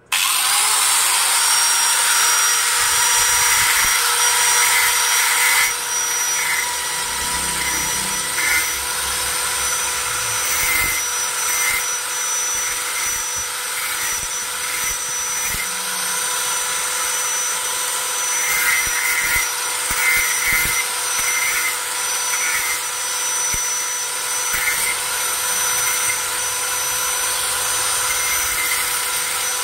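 Small electric angle grinder switched on and spinning up to a steady high whine, then grinding the metal blade of an ID card cutter, with a gritty grinding sound coming and going as the blade is worked against the disc: sharpening a dulled cutter blade.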